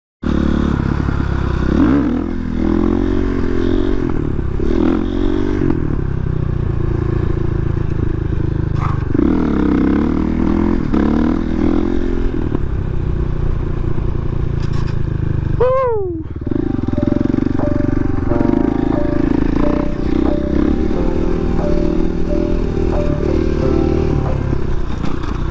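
KTM 500 EXC-F supermoto's single-cylinder four-stroke engine running while being ridden, its pitch rising and falling repeatedly as the throttle opens and closes. About two-thirds through it dips sharply and climbs again, then holds steadier toward the end.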